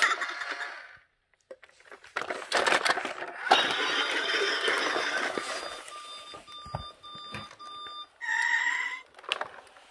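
Large plastic toy dump truck handled and rolled across foam floor mats: a few knocks and rattles, then a steady rolling noise. Near the end comes one short electronic tone from the toy.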